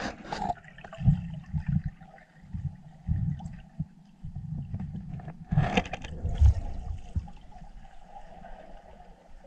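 Underwater recording: muffled gurgling and sloshing water with irregular low thumps, a louder rush of bubbling about five and a half seconds in, over a faint steady hum.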